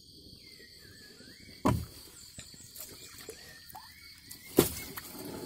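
Crickets chirring steadily, with two short splashes of river water: one about one and a half seconds in, the louder near the end, as the catch is handled with a hand net in the water.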